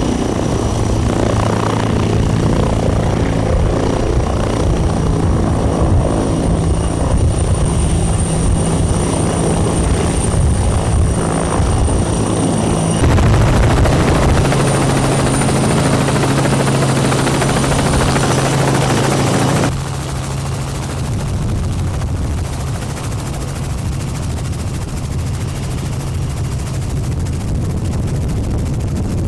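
TAI/AgustaWestland T129 ATAK attack helicopter's rotor and twin turboshaft engines running in flight: steady rotor noise with a high whine above it. The sound shifts abruptly about 13 seconds in and again about 20 seconds in, and is somewhat quieter after the second shift.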